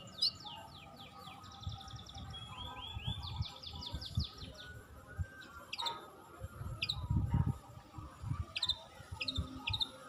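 Wild songbirds singing: fast trills of repeated falling whistled notes for the first few seconds, then scattered sharp chirps. Under them runs a low rumble, loudest about seven seconds in.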